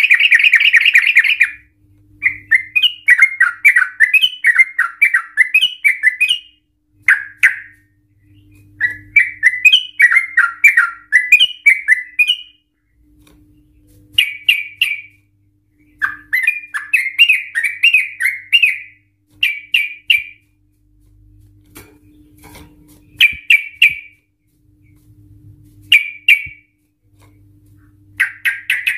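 Caged yellow-vented bulbul (trucukan) singing. A long, dense trill opens, then come bursts of quick rolling, chattering phrases, several seconds each, broken by pauses and single short calls.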